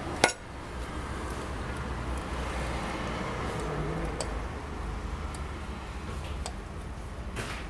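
A sharp metal click about a quarter second in, then a few faint clinks and ticks as a hand works the turbocharger's exhaust outlet under a car, over a steady low background hum.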